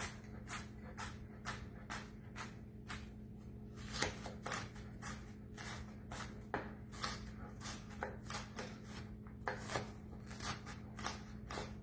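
Sharp kitchen knife dicing an onion on a cutting board: repeated chopping strokes, about two to three a second, over a steady low hum.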